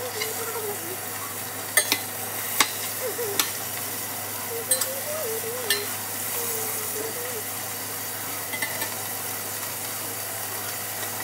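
Ground beef sizzling as it browns in a pot, with a metal utensil stirring it and knocking and scraping against the pot, sharp clinks scattered through the first six seconds and a few lighter ones later.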